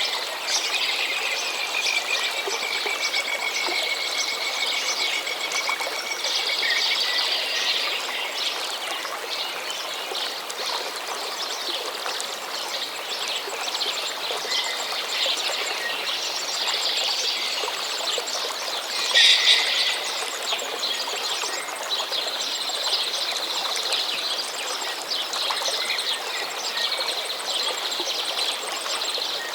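A stream running steadily with songbirds singing over it. One long, slightly falling high note comes in the first few seconds, a loud call about two-thirds of the way through, and a quick repeated trill after it.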